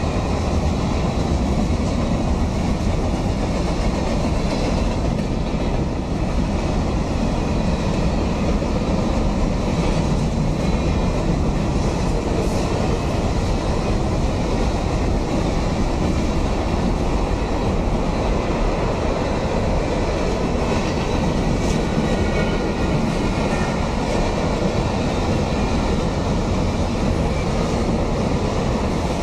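Kansas City Southern freight train's cars rolling through a grade crossing: a steady, loud rumble of steel wheels on the rails that holds even throughout.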